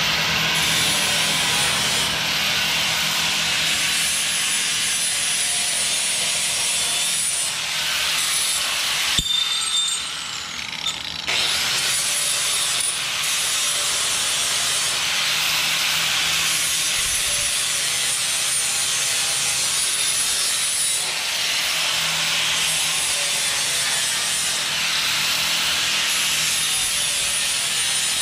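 Handheld angle grinder grinding sheet steel: a steady high whine over a rasping hiss that wavers as the disc is pressed into the metal. It eases off with a click about nine seconds in and picks up again about two seconds later.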